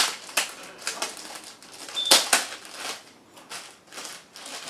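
Plastic wrapping and a zip-top plastic bag crinkling and crackling in irregular bursts as they are handled to unwrap a camera, with the loudest crackle about two seconds in.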